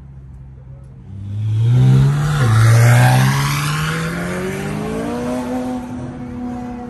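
A car accelerating hard past, its engine revs climbing. A quick upshift drops the note about two and a half seconds in, then the revs climb again as it pulls away and fade.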